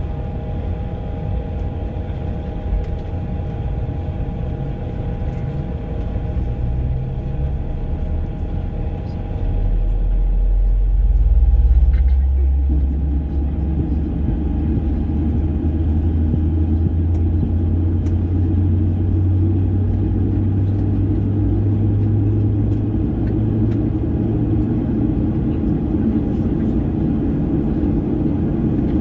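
Cabin noise of a Boeing 737-800 on the ground, its CFM56 engines running with a steady whine over a low rumble. About ten seconds in, a deep rumble swells, and after that the noise settles at a louder, fuller level.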